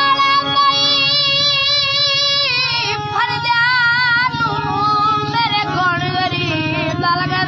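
A boy singing in Balochi with long held, wavering notes, accompanying himself on a harmonium whose reeds hold steady drone chords beneath the voice.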